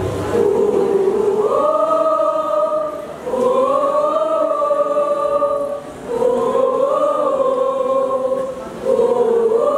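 Mixed choir of boys' and girls' voices singing together, holding long notes in phrases of about three seconds with short breaks between them.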